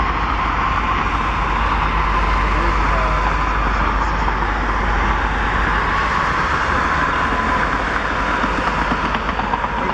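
Passenger train rolling past: a steady rumble and rail noise, with a thin steady whine running through it.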